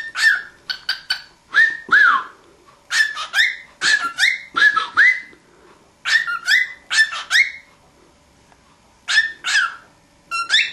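Cockatiel whistling and chirping: quick clusters of short gliding whistle notes, some rising and some falling, with a brief pause about three-quarters of the way through.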